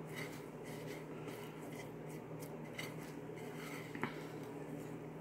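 Hands pressing and turning a fish fillet in dry breadcrumbs on a ceramic plate: faint scratchy rubbing with a few brief scratches, over a steady low hum.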